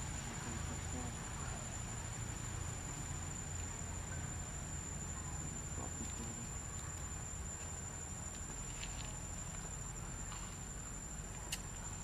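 Insects droning outdoors: a steady, continuous high-pitched tone over a low background rumble, with a few faint clicks near the end.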